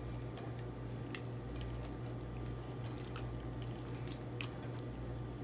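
A spoon stirring thick taco soup in a pot: wet, squelching liquid sounds with scattered clicks of the spoon against the pot, over a steady low hum.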